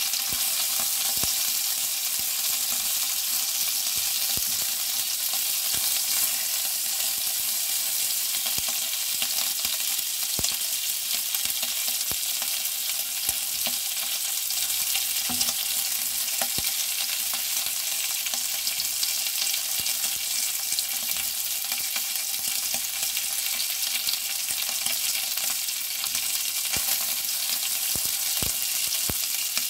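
Cocktail sausage pieces sizzling steadily in a nonstick frying pan, with scattered clicks and scrapes from a spatula stirring them.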